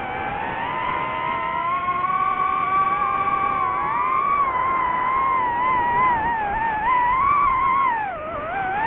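DJI FPV quadcopter's motors and propellers whining, the pitch gliding up and down with the throttle and dipping briefly near the end.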